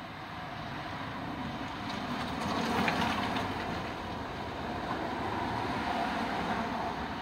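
Vehicle noise swelling as something drives past. It peaks about three seconds in, then eases off a little but stays fairly loud.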